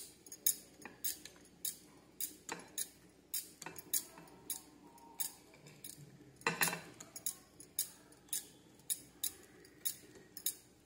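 Metal wire whisk beating cake batter in a ceramic bowl, its wires clicking against the bowl in an irregular rhythm of about two clicks a second.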